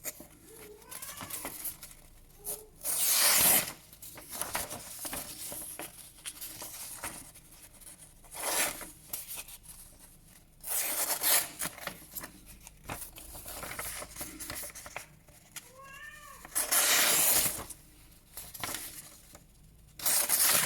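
A folding pocket knife's blade slicing through a sheet of paper in about five quick strokes, with paper rustling between them, as a test of how sharp the blade is.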